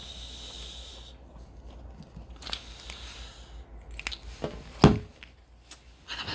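Pen scratching on paper for about a second, then scattered clicks and light handling knocks, with one louder thump about five seconds in.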